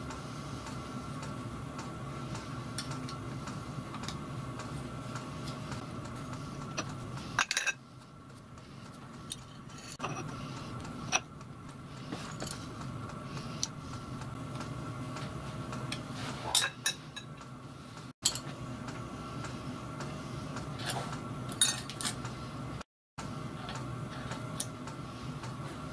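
Scattered metallic clicks and clinks as a dividing head's steel index plate and crank are handled and fitted, over a steady machine hum.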